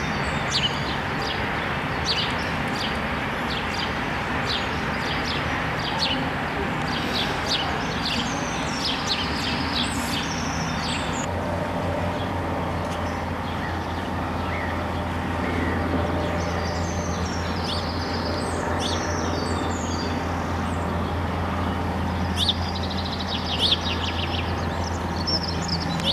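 Outdoor ambience of small birds chirping over a steady background hiss. A steady low drone comes in about eleven seconds in and carries on.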